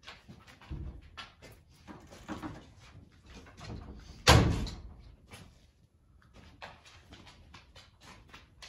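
Footsteps and small knocks of someone walking across a hard floor, with one loud thud about four seconds in: a door shutting.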